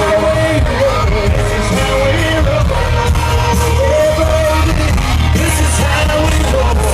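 Live country-rock band playing loud through a concert PA, with singing over it and a heavy, steady bass.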